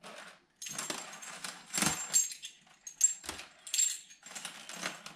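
Steel bucket tappets from a Yamaha R1 engine clinking against each other and the cylinder head as they are handled and set into their bores: a series of light metallic clicks, several with a short high ring.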